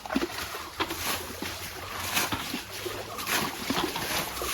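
Water being bailed by hand out of a shallow, muddy field channel: irregular repeated splashing and sloshing.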